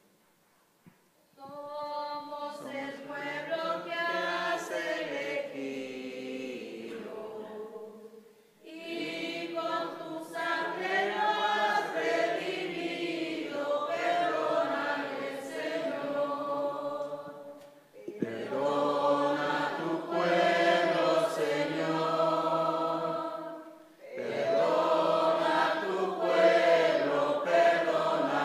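A congregation singing a hymn together in four sung phrases, with brief breaths between them.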